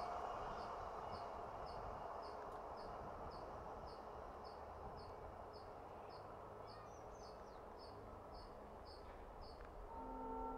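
Faint trackside ambience: a high chirp repeating evenly about twice a second, insect-like, over a low rumble that slowly fades. Near the end a steady tone of several pitches comes in.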